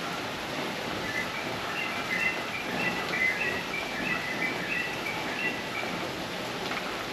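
A bird calling: a quick series of short chirping notes over a steady rushing noise like running water or rain.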